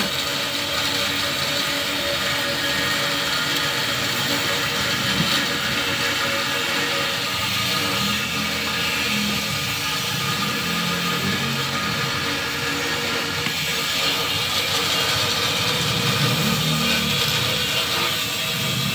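Steady mechanical running noise, like an engine or motor, holding an even level throughout.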